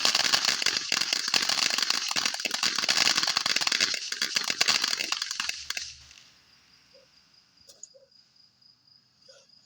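Fireworks crackling: a dense, rapid run of sharp pops lasting about six seconds, then stopping abruptly.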